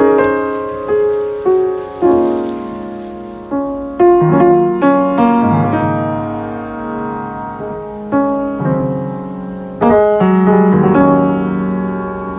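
Background piano music: a slow, gentle melody over chords, each note struck and left to fade.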